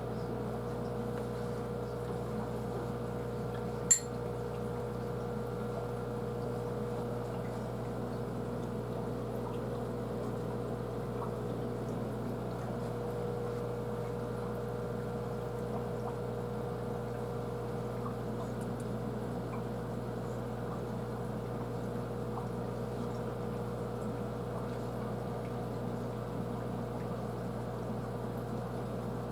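Aquarium pump running steadily, a low hum with water trickling, and a single sharp click about four seconds in.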